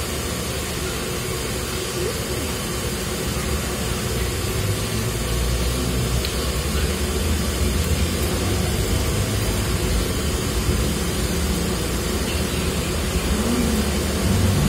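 Steady low mechanical rumble, growing louder about five seconds in.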